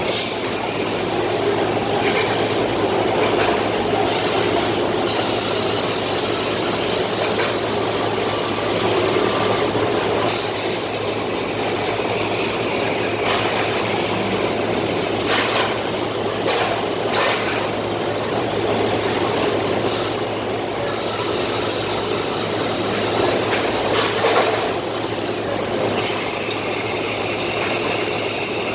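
Machinery running steadily: a continuous rushing mechanical noise over a low hum, with a few brief shifts in the hiss.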